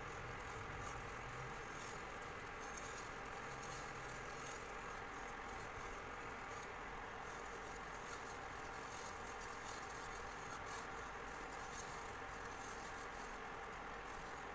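Wire whisk stirring milk in a nonstick frying pan: faint soft scraping with light, irregular ticks of the wires against the pan, over a steady faint hum.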